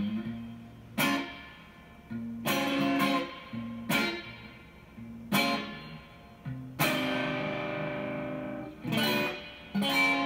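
Stratocaster-style electric guitar played slowly: chords and single notes picked about once a second and left to ring, with one long ringing chord past the middle.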